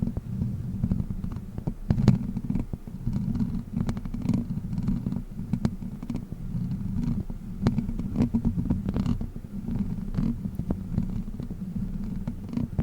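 A fake witch-finger prop rubbed and tapped directly against the microphone: a dense, muffled low rumble broken by frequent sharp clicks.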